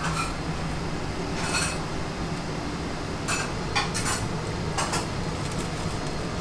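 Dishes and cutlery clinking, about six short, sharp clinks spread across a few seconds over a steady low hum.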